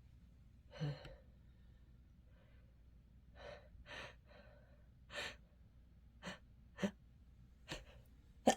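A person with an itchy, runny nose sniffing and drawing short, sharp breaths, about eight separate sniffs and gasps spread out with pauses between them. Just before the end comes the sudden in-breath that starts a sneeze.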